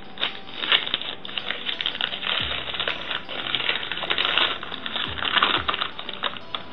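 Paper wrapping crinkling and rustling as a paper-wrapped container is handled and unwrapped by hand, a dense stream of small crackles with a few dull thumps from handling.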